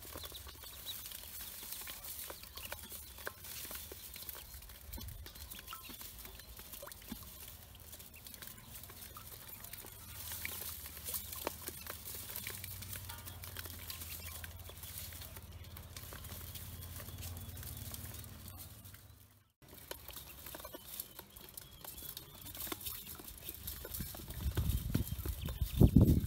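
Pekin ducklings feeding from a dish in a metal basin: many small quick taps and clicks of bills pecking and dabbling. A few loud low thumps near the end.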